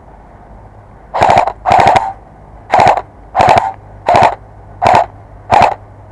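Airsoft electric rifle firing seven short bursts of rapid shots, one burst about every two-thirds of a second, starting about a second in.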